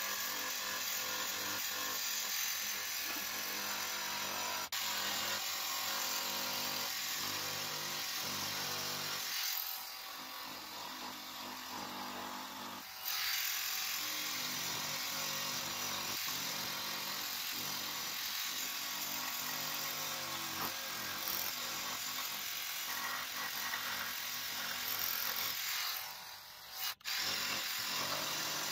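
Jigsaw fitted with a Collins Coping Foot cutting a cope in painted crown molding, running steadily as the blade saws through the wood. It eases off for a few seconds about ten seconds in, and stops briefly near the end before running again.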